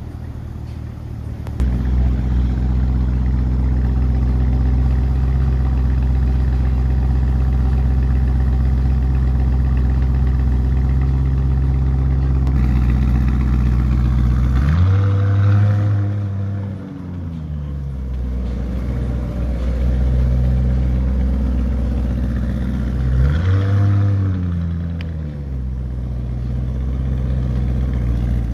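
Lamborghini Urus twin-turbo V8 idling with a deep, loud exhaust note, revved twice: each rev rises and falls over a couple of seconds, about halfway through and again several seconds later. Near the end the car pulls away.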